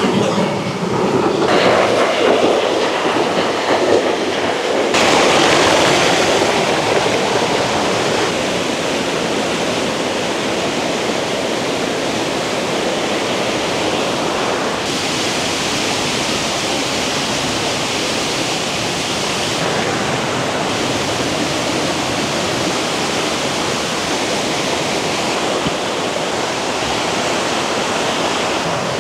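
Water of a small forest stream rushing and splashing over rocks in a steady, unbroken wash. It is loudest and fullest in the first five or six seconds, then continues a little softer.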